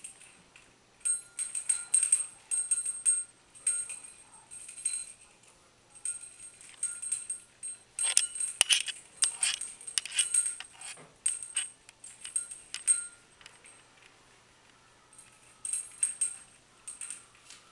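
Small metal bell on a parrot toy jingling in irregular bursts as a caique grabs and rolls around with it. The loudest jangling comes about eight to ten seconds in, with a quiet spell a little later.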